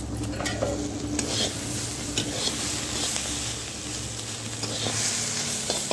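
Sliced ivy gourd and potato sizzling in hot oil in a kadai while a metal spatula stirs them, scraping and clicking against the pan now and then.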